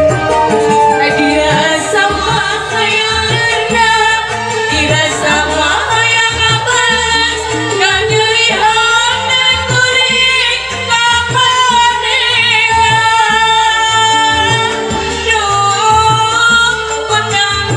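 A woman singing a Sundanese song into a microphone over a sound system, with instrumental accompaniment.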